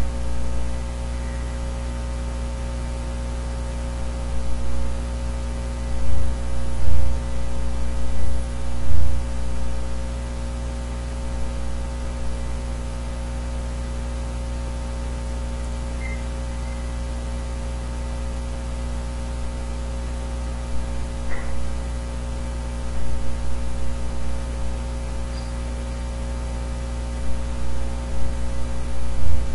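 Steady electrical mains hum with several fixed higher tones over a hiss, the background noise of the recording's microphone chain. A few soft low thumps come about six to nine seconds in and again near the end.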